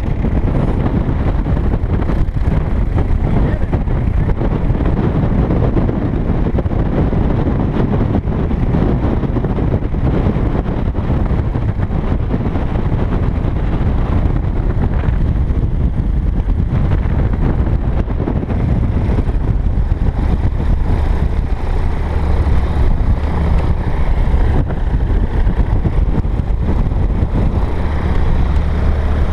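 Single-engine light aircraft's piston engine and propeller running steadily at low taxi power, with wind buffeting the microphone.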